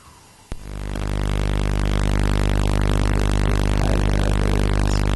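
Buzzing audio signal from XYscope's X/Y wavetable oscillators, played over the loudspeakers: the signal that draws a line on an oscilloscope in XY mode, with the left channel carrying the left-to-right movement. It starts with a click about half a second in, swells over the next second and then holds steady as a loud buzz with many overtones.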